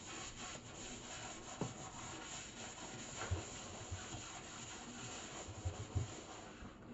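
Rubber-gloved hand scrubbing a stainless steel sink basin with a cloth: a steady rubbing scrub, with a few light knocks.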